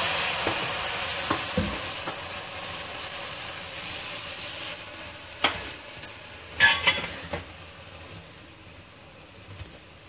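Spice masala frying in oil in a cooking pot, sizzling loudly at first just after a little water has gone in, the sizzle dying down over the following seconds. A spatula stirs and scrapes the pot, with a few sharp scrapes around the middle.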